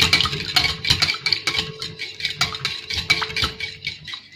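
Wire whisk beating a thin batter in a glass bowl: rapid clinks of the wires against the glass, several a second, thinning out near the end.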